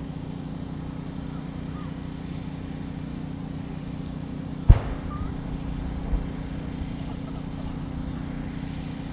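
A single shot from a CZ 455 bolt-action .22 LR rifle about halfway through, followed about a second and a half later by a softer thump, over a steady low hum.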